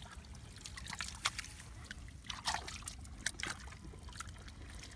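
Shallow water sloshing and trickling, with a string of short, irregular splashes.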